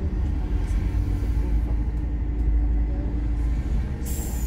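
Iveco Crossway LE bus with a Cursor diesel engine and Voith automatic gearbox running with a steady low rumble and a faint steady whine. About four seconds in, a sudden hiss of compressed air from the bus's air system.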